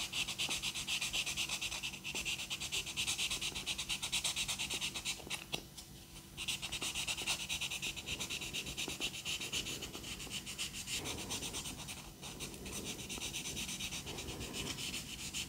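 A 3M microfine sanding sponge rubbed in quick, short back-and-forth strokes over putty on a plastic model aircraft, making a soft rhythmic scratching hiss. This is gentle fine-grit sanding along the structure lines to bring the putty flush with the plastic. The strokes pause briefly about six seconds in and go on more lightly in the last few seconds.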